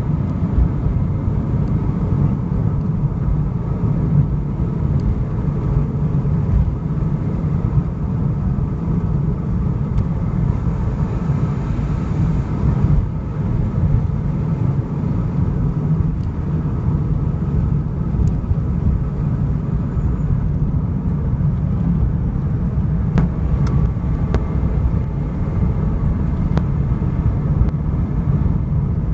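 A car being driven: steady engine and road noise, with a few faint ticks late on.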